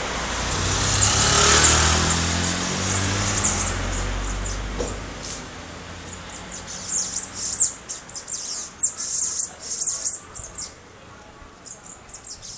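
A car passes, its rumble swelling and then fading away over the first five seconds. A small bird chirps over it, then gives a quick run of short, high chirps.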